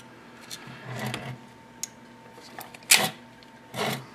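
Clicks and scrapes as a circuit board is worked off the metal chassis of a 3.5-inch floppy disk drive, with a sharp click about three seconds in and a short scrape near the end.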